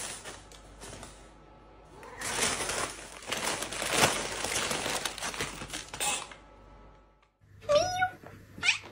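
Brown paper bag crinkling and rustling as a cat pushes and burrows into it. Near the end a cat meows twice, briefly.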